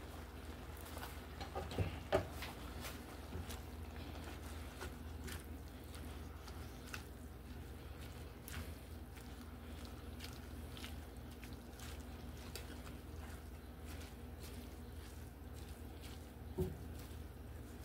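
Cabbage and kale simmering in a skillet with a little water, giving a light scattered crackling and popping, while the greens are stirred with a utensil. A couple of louder knocks against the pan about two seconds in and again near the end.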